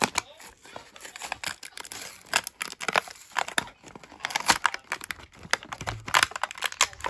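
Clear plastic blister pack of a Mattel die-cast toy car crinkling and crackling in irregular bursts as it is prised and peeled off its cardboard backing card, the card tearing as it comes away.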